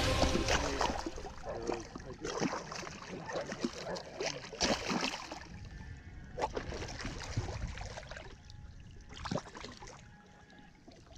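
Nurse shark thrashing at the surface beside a boat's hull, throwing up irregular splashes of water. The splashes come every second or two and grow weaker, dying away near the end.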